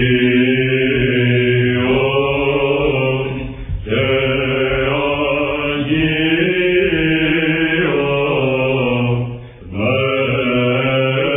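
Byzantine chant: two Athonite monks sing a doxastikon in the plagal fourth mode, a steady low drone (ison) held under the slow, ornamented melody. There are two short breaks between phrases, about 4 and 9.5 seconds in. It comes from an old radio recording.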